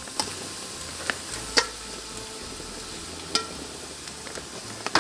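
Marinated chicken wings sizzling on a hot gas grill grate as they are laid down, with a steady hiss. Four or five sharp clicks of metal tongs come through it, the loudest about one and a half seconds in.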